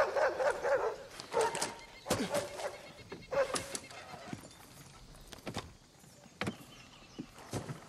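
Dogs barking several times in the first few seconds, the barks thinning out, then horses stirring with scattered sharp hoof knocks.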